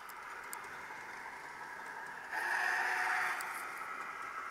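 Sound decoder in a Kato N-scale Union Pacific Big Boy playing steam locomotive running sounds through its small onboard speaker, a steady hiss that grows louder for about a second a little past halfway.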